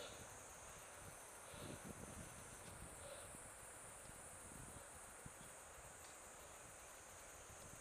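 Faint, steady high-pitched insect chirring, with a few soft low rustles close by.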